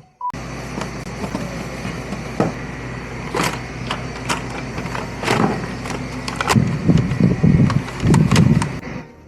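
A small motor running steadily with a low hum, starting suddenly just after the start and cutting off near the end, with scattered clicks and knocks over it.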